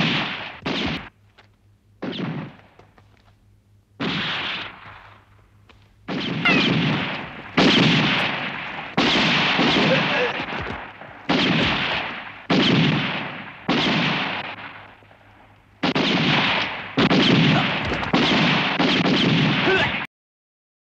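Movie-soundtrack gunfire: a run of about fifteen loud shots, each ringing out for about a second, coming faster toward the end before cutting off suddenly.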